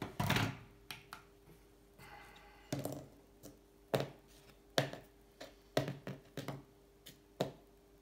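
A digital kitchen scale pushed across a cardboard-covered tabletop with a brief scrape. Then about eight light taps and knocks follow as a small cut-off piece of steel seat post is handled and set on the scale.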